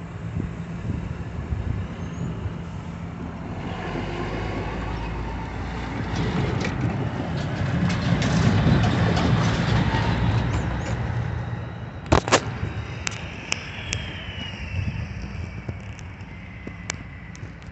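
Road traffic crossing the tracks once the gates lift behind a passing train: vehicle noise swells to a peak about eight to ten seconds in and then fades. A couple of sharp clicks follow about twelve seconds in.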